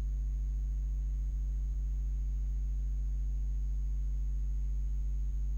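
Steady low electrical hum with several evenly spaced overtones and a faint thin high whine above it, unchanging throughout.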